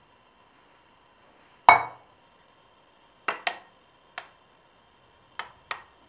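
A metal spoon clinking against a glass mug six times, each clink ringing briefly, the first the loudest, as thick whipped coffee foam is spooned into the mug.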